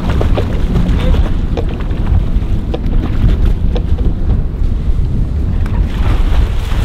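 Wind buffeting the microphone over a low rumble of the boat and water sloshing against the hull. About six seconds in, splashing as a sailfish thrashes at the surface alongside.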